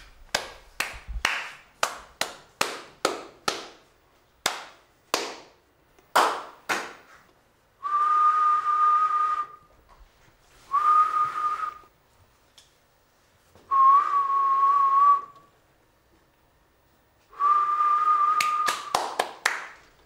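Small motor-driven propellers on a kinetic wall object: first a run of sharp clicks, about two a second, then four bursts of whirring, each one to two seconds long with a steady high whine, and a few more clicks near the end.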